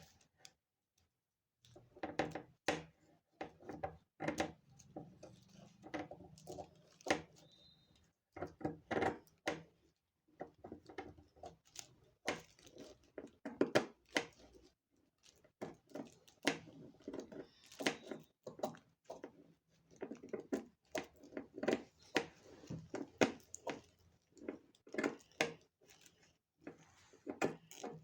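Tissue paper being handled and worked on a tabletop while a paper boat is made: irregular rustles, taps and light knocks.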